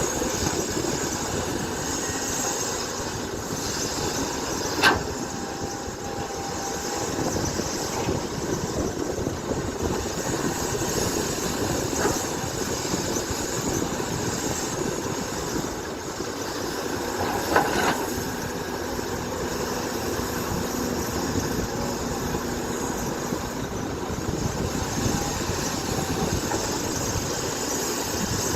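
Excavator diesel engine running steadily as it digs, with three sharp metal clanks spread through, the loudest about five seconds in and again near two-thirds of the way.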